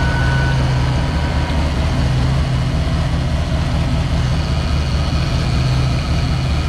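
Car engine idling with its two electric radiator fans running under thermostatic controller control: a steady, loud rush over a low hum.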